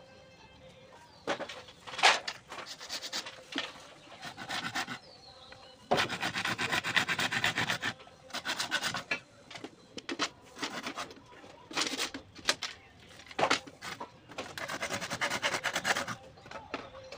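Bamboo strips being scraped and shaved with a knife blade against a wooden block: repeated rasping strokes, some lasting a second or two, with a few sharp knocks of the blade.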